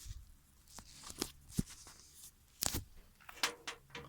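Handling noise from a PC case being moved and turned by hand: a string of short knocks and clicks with brief rustling scrapes.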